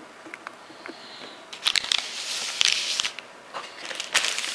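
Plastic anti-static bag crinkling under a motherboard as it is handled: a few light ticks, then two spells of crackly rustling with sharp clicks, the first starting about a second and a half in, the second about three and a half seconds in.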